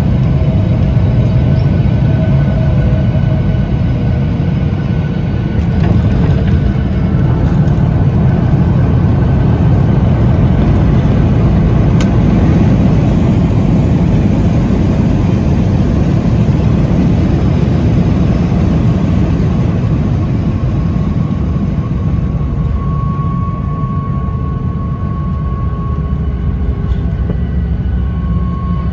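Cabin noise of a Boeing 737-800 rolling on the ground, heard from a seat over the wing: a steady low rumble from its CFM56-7B engines, airflow and the wheels. A thin steady whine comes in during the second half.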